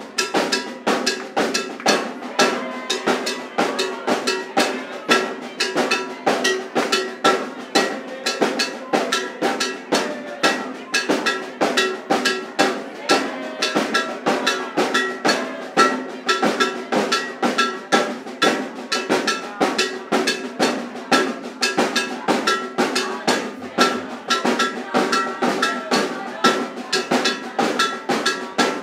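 Live percussion ensemble of strap-slung drums, metal-shelled snare drums and larger bass drums, struck with sticks in a steady, fast, driving rhythm.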